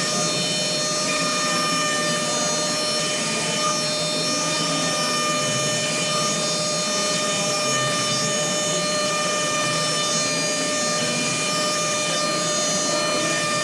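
Machinery in a CNC machining cell running steadily: an even mechanical noise with a constant whine at several pitches.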